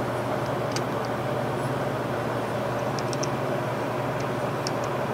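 Steady mechanical hum of shop machinery, with a few faint light metallic ticks from small tools and a vise edge stop being handled.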